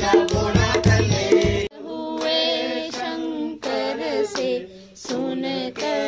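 A child singing a devotional song over rhythmic percussion and hand-clapping, which cuts off abruptly about a second and a half in; then voices singing an aarti hymn unaccompanied, in slow, held notes.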